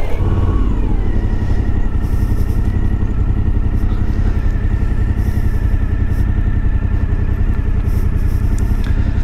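Suzuki V-Strom 1050XT's V-twin engine running as the motorcycle rides slowly, its pitch dropping in the first second and then holding steady.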